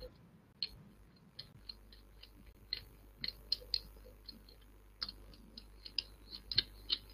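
Faint, irregular light clicks at a computer, a few a second, over a low steady hum.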